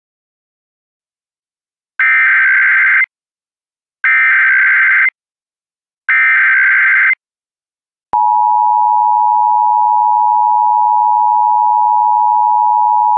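Emergency Alert System header: three identical one-second bursts of screeching digital SAME data, two seconds apart. About eight seconds in, the steady two-tone EAS attention signal starts and holds.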